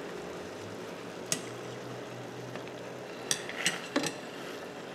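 Water boiling in a stainless steel saucepan, with light clinks of a metal mesh strainer against the pot as boiled hook baits are scooped out: one about a second in and a few more near the end.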